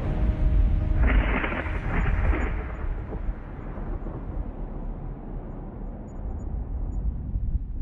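A deep, steady rumble. A rush of hiss rises over it about a second in and fades away over the next few seconds.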